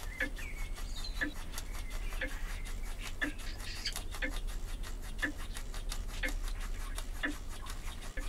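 Retrol model steam beam engine warming up as it starts to run on steam. It ticks with a sharper click about once a second and fainter clicks in between, with a hiss of steam. Steam is condensing in the cold cylinder, so it runs with hot water and steam spattering from the exhaust.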